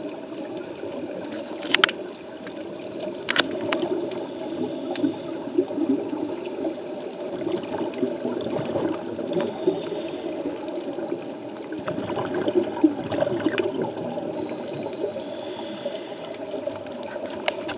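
Muffled underwater noise with bubbling from scuba divers' regulators, heard through a camera housing, with a few sharp clicks near the start.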